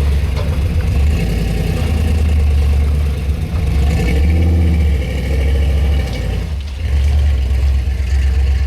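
Large plow truck's engine running hard as it works the snow, its level rising and easing off several times.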